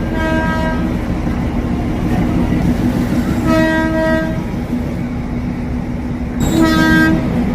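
Darjeeling train's horn honking three times: the tail of one honk at the start, a honk of about a second roughly three and a half seconds in, and a shorter one near the end. A steady rumble runs underneath.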